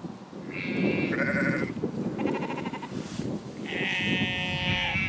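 Sheep bleating, several separate wavering calls, the last one the longest at about a second and a half, over a steady rumble of wind on the microphone.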